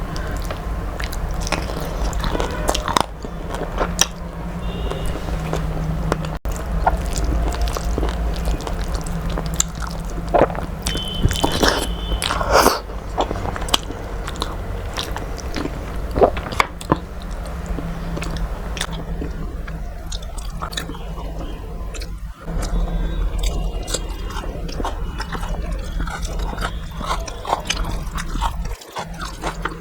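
A person chewing and biting food close to the microphone: a run of irregular wet mouth clicks, smacks and small crunches. A steady low hum runs beneath.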